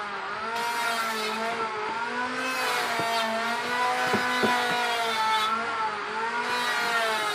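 Electric motor of a wood mortising machine running steadily, its pitch wavering slightly as the load changes. A few sharp knocks come about four seconds in, as the timber is shifted against the machine.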